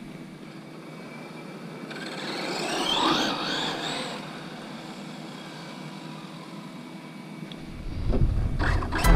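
Losi 22S drag car's brushless motor and drivetrain whining as the car launches on a 2S LiPo with the stock 16-tooth pinion: a rising whine about two seconds in that peaks and then fades as the car pulls away down the road. Near the end a louder low rumble comes in.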